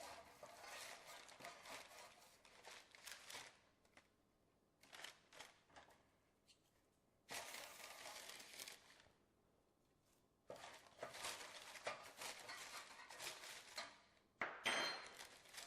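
Faint crinkling and scraping of parchment paper under crispy roasted smashed Brussels sprouts as they are handled on the sheet, in four bouts of scratchy rustling with short pauses between them.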